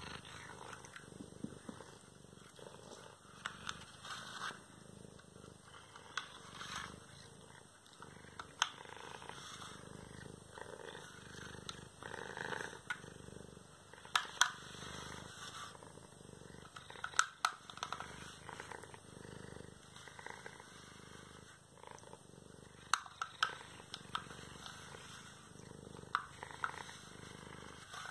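A cat purring steadily while she is brushed with a hand-held groomer, with a few sharp clicks scattered through, some in quick pairs.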